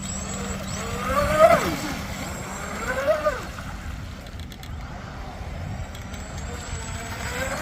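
Electric motor of a radio-controlled boat whining up and down in pitch twice, over a steady rush of wind and water.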